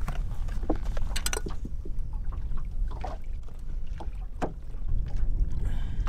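Steady low rumble of wind on the microphone and water lapping against the hull of a drifting bass boat, with a few sharp clicks and knocks scattered through.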